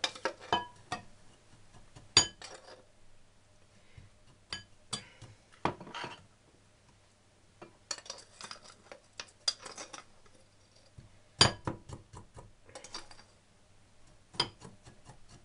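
Scattered clinks and taps of kitchen utensils and dishes, several with a short bright ring, with quiet gaps between them.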